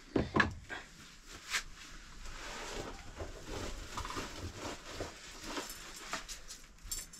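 A few sharp knocks of a metal pan being set down on the floor, followed by rustling of a plastic bag being handled, with light ticks and clatter.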